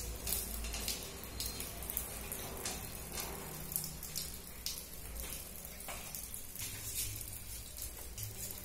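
Water trickling and dripping from a wet diamond core drill bit left in the wall with its motor stopped, over a low steady hum, with a few light clicks of handling.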